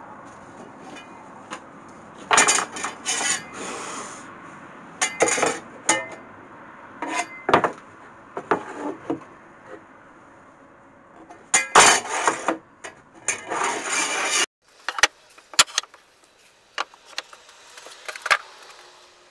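Wooden boards being handled and set down on a workbench: irregular bursts of knocks and clatter, wood striking wood. Near the end the background hiss cuts off and only a few scattered clicks follow.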